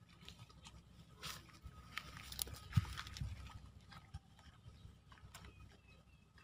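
Close rustling and scuffing in dry grass and soil, with scattered small clicks that get busiest in the middle and one sharp knock about three seconds in.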